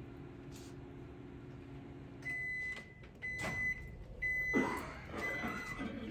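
Microwave oven humming as it runs. About two seconds in the hum stops and the oven beeps its end-of-cycle alarm, a high beep about once a second, four times. A clatter comes about halfway through.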